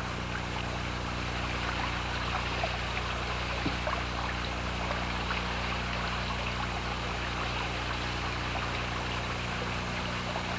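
Rushing river water, a steady wash of noise.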